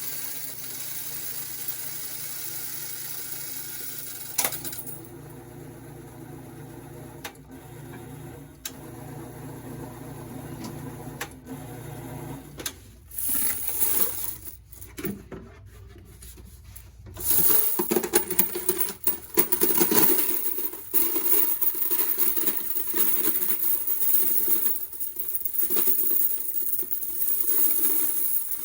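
Coins, quarters, clattering in a loud, dense, continuous rattle that sets in about two-thirds of the way through. Before that there is a steady low hum broken by a few sharp clicks.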